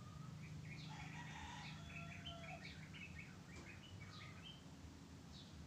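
Faint birds chirping in quick runs of short notes, busiest through the middle, over a low steady hum.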